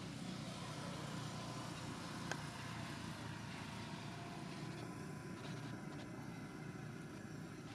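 Steady low background rumble, with a single faint click about two seconds in.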